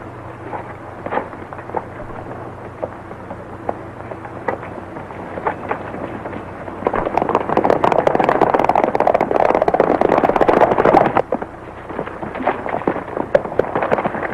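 Hoofbeats of several horses galloping, a dense clattering that grows louder about seven seconds in and thins out again after about eleven, over the hiss of an old film soundtrack.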